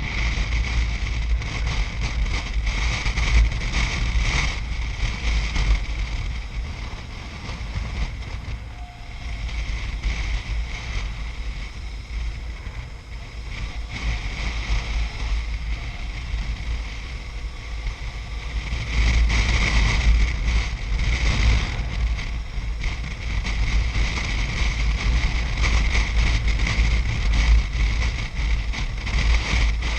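Wind buffeting the microphone on a moving BMW R1150RT motorcycle, over the bike's engine and road noise. The rush eases for a stretch in the middle and grows louder again about two-thirds of the way in.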